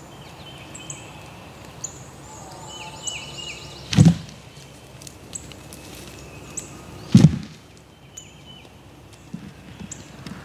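Two bow shots at turkeys, each a sharp thump, about three seconds apart, with songbirds chirping in the background.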